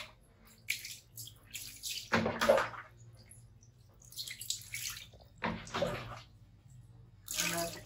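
Water being scooped from a plastic basin with a bowl and poured over a small wet animal onto a tiled floor, in several short splashing bursts, the loudest about two seconds in.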